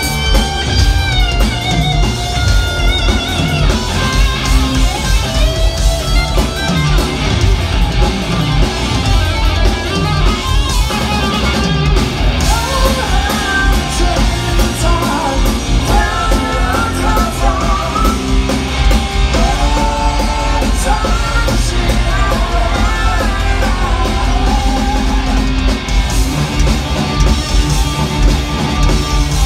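Live rock trio playing loud: electric guitar, electric bass and a drum kit.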